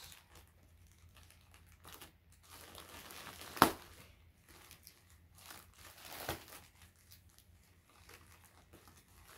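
Packaging crinkling and rustling as a mailed package is opened and handled, with a sharp click about three and a half seconds in and a softer one a few seconds later.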